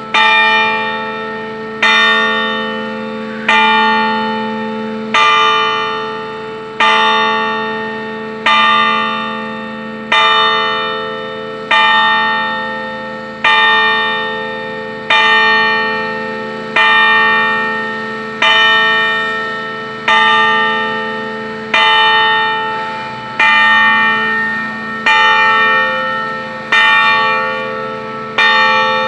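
A loud church bell tolling, its clapper striking about once every 1.7 seconds. Each stroke is the same note and rings on into the next.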